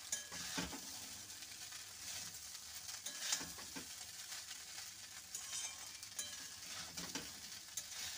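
A spatula scraping and tossing flattened-rice pulao around a metal kadai, in irregular strokes about once a second, over a light sizzle of the rice frying in oil.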